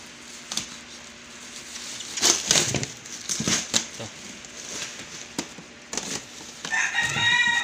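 Kitchen knife scraping and slicing through packing tape and plastic strapping on a cardboard box, in irregular scratchy strokes. Near the end a rooster crows, loudly.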